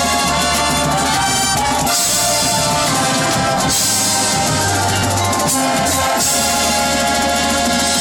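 Loud band music with drums under held chords that change every second or two.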